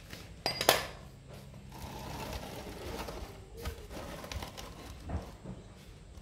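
Sharp metallic clicks about half a second in, then a soft hiss for a few seconds as used engine oil drains from the motorcycle's sump into a plastic drain container, with a few light knocks as the container is handled.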